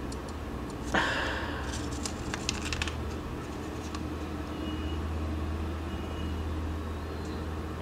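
Digital caliper being handled and its jaws slid and closed on a phone's edge: a brief rustle about a second in and a few light clicks, over a steady low background hum.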